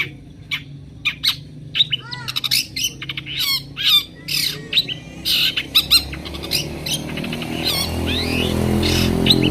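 Long-tailed shrike (cendet) singing a rapid, varied run of short harsh calls and whistled, sliding notes. A low rumble builds up under the song in the second half.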